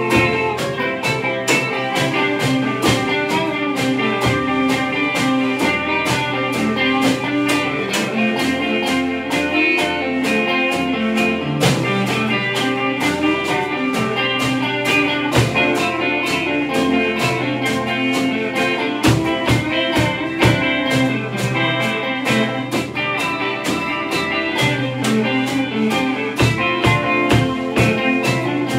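Instrumental rock played live by a three-piece band: two electric guitars over a Gretsch drum kit keeping a steady beat.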